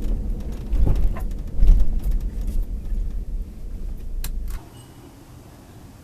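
Vehicle on the move: a low road rumble with a few sharp clicks and rattles. It cuts off abruptly about four and a half seconds in, leaving a faint steady background.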